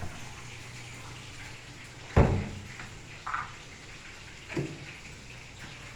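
Kitchen handling sounds over a steady low hum: one sharp, loud knock about two seconds in, a short blip a second later, and a softer knock near the end, as things are set down and moved on the counter.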